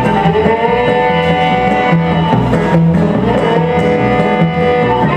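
Live bluegrass band playing: fiddle holding long bowed notes over strummed acoustic guitar, electric guitar and an upright bass keeping a steady beat.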